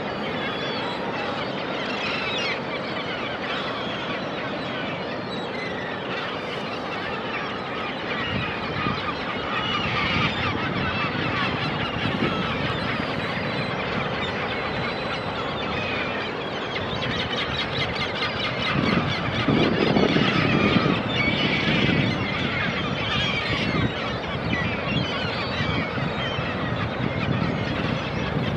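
A flock of seabirds calling constantly in many short overlapping calls, over the steady noise of Pacific surf; a wave surges louder about nineteen to twenty-one seconds in.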